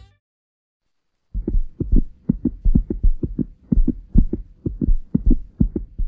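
A fast series of low, dull thumps, about four a second, over a faint steady hum. The thumps begin after about a second of silence.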